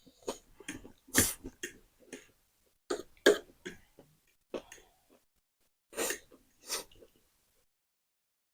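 A person coughing and clearing their throat in several short, sharp bursts while eating very spicy noodles, with fainter mouth and eating sounds in between.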